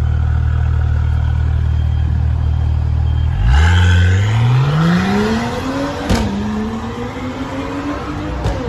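Mercedes-Benz CLS 450's 3.0-litre turbocharged inline-six through a valved cat-back exhaust, idling with a deep steady note, then accelerating away hard about three and a half seconds in. The pitch climbs and falls back with a short crack at each of two upshifts, about six and about eight and a half seconds in.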